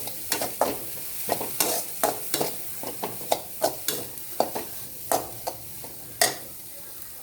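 Spatula scraping and knocking against a kadai while stir-frying chopped vegetables in oil and butter, over a steady sizzle. The strokes come about twice a second and stop a little after six seconds in, leaving the sizzle.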